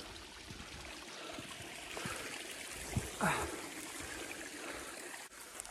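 Small hillside stream trickling over stones: a steady rush of running water, with a brief thump about three seconds in.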